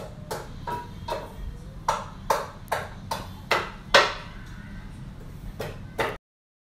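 Wire-mesh deep-fryer basket clinking and knocking against the metal fryer as it is lifted and hooked, a quick irregular run of sharp metallic clicks, some ringing briefly, the loudest just before the middle, over a low steady hum. The sound cuts off abruptly near the end.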